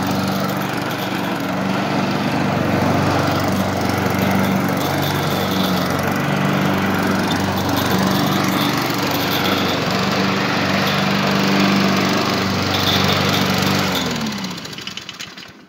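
2013 Honda walk-behind lawn mower's single-cylinder four-stroke engine running steadily while the mower cuts grass. About a second before the end the engine shuts off, and its pitch slides down as it winds to a stop.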